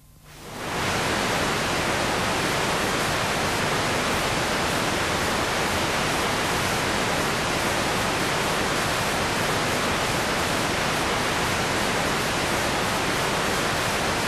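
Steady hiss of static noise, like a television tuned to no channel. It fades in over about the first second and cuts off abruptly at the end.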